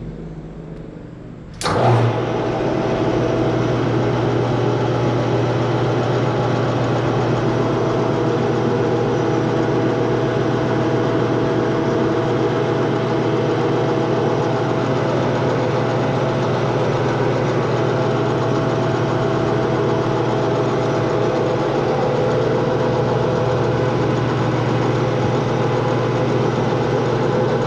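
Metal lathe switched on about two seconds in, its motor and spindle gearing then running steadily with a constant hum and several fixed tones.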